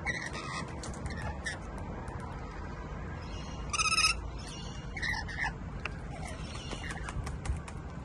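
Rainbow lorikeets giving short screeching calls, the loudest about four seconds in, while bathing and splashing in a shallow plastic tub of water, with light splashes and drips throughout.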